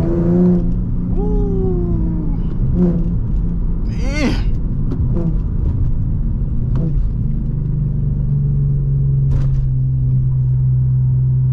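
Infiniti G37x's 3.7-litre V6 heard from inside the cabin while driving. After a few short gliding pitched sounds early on, it settles into a steady low drone at constant revs from about eight seconds in.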